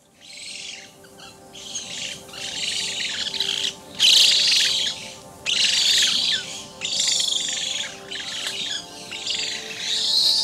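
Birds chirping and twittering in busy, high phrases about a second long, separated by brief pauses.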